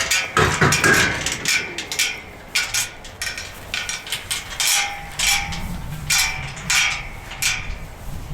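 A hammer striking repeatedly in an irregular run of sharp blows, roughly two a second, some of them ringing briefly.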